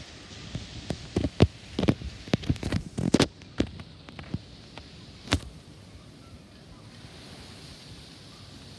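Wind blowing, with a run of irregular sharp knocks and bangs over the first five seconds, the last about five seconds in, then a steady hiss.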